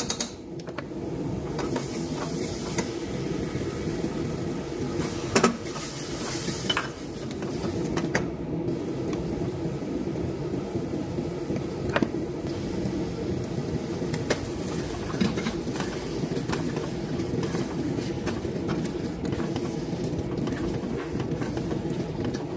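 A steady low hum runs throughout, under a few sharp clinks and knocks of utensils against a stainless steel cooking pot, the loudest about five seconds in.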